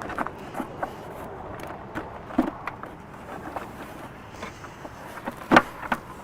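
Scattered knocks and clicks of an aftermarket cold air intake box being handled and worked into place in an engine bay, with one sharp knock about five and a half seconds in.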